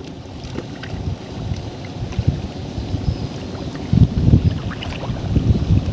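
Wind rumbling on the microphone, with scattered knocks from a wooden country boat as a man climbs aboard and shifts his weight. The sound is heaviest about four seconds in.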